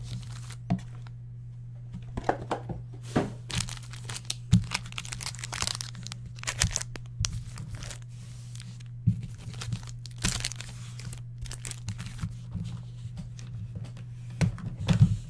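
Foil wrappers of Panini Contenders football card packs crinkling and rustling as the packs are pulled out of a cardboard box and stacked, in irregular short rustles and clicks, busier near the end. A steady low hum runs underneath.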